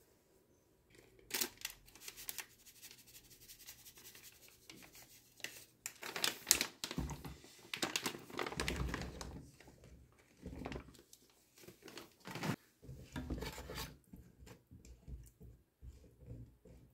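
Plastic food packaging crinkling and being torn open, with irregular rustles and small knocks as rice cakes go into a frying pan, loudest about halfway through.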